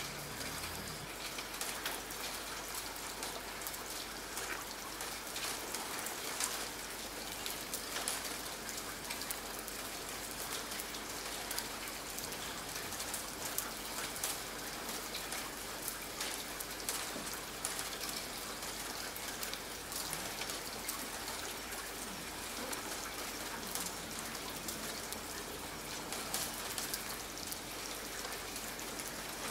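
Steady rain, with many individual drops heard as small sharp ticks over an even hiss.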